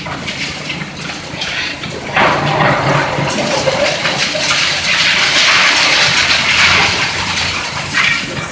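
Concrete demolition rubble crumbling and falling as the excavator's crusher breaks up the viaduct: a loud rushing crash that starts suddenly about two seconds in and runs on for several seconds.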